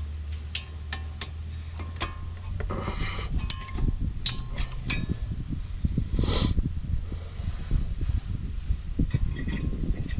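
Sharp metallic clicks and clinks of brake pads and their retaining clips being handled and pushed into the caliper bracket, thickest in the first half. A steady low hum gives way to a low rumble about three seconds in.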